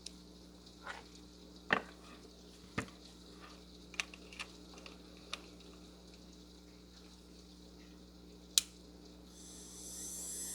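A few sharp clicks and taps of the handpiece being handled. Near the end the Medicool Pro Power 20K nail drill's handpiece motor starts and spins up with a rising high whine, now running on its newly replaced power cord.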